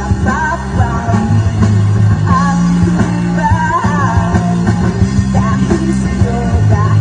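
Rock band playing live with a singer over guitar and bass.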